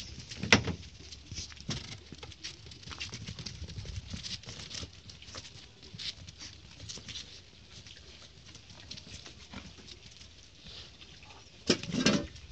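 Husky puppy and golden retriever puppy play-fighting: paws and claws scrabbling and clicking on paving stones. There is a sharp knock about half a second in and a louder burst of scuffling near the end.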